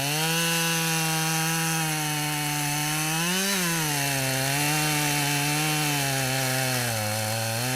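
Husqvarna 572XP two-stroke chainsaw with a 28-inch bar running at high revs while cutting into black locust wood. The engine pitch rises briefly about halfway through and sags slightly near the end as the load on the chain changes.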